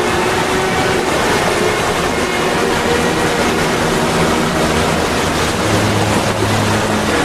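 Waterfall rushing: a loud, steady roar of falling water plunging into a pool.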